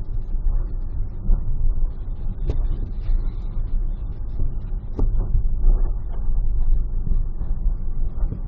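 Car cabin road and engine noise at freeway speed: a steady low rumble, broken by two sharp pops about two and a half seconds apart.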